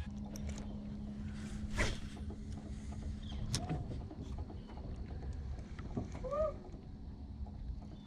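Steady low hum of a small boat's electric trolling motor that stops about three and a half seconds in, over a low rumble of water and handling. A sharp click about two seconds in, and two short chirps later on.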